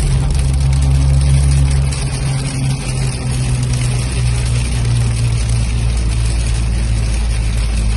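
Toyota Land Cruiser 80-series engine running with a steady low drone that shifts in pitch about two seconds in, under a continuous hiss of heavy rain.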